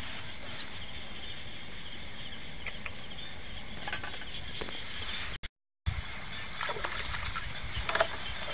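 Night insect chorus, crickets chirping in a steady high pulse of about four a second over a constant high-pitched trill, with faint rustling and knocks from hands working the bamboo trap. The sound cuts out briefly about five and a half seconds in.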